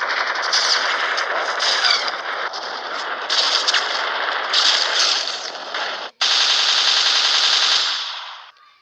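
Machine-gun sound effects: dense, continuous automatic gunfire, then after a brief break about six seconds in, a second burst of rapid, evenly spaced automatic fire that fades out near the end.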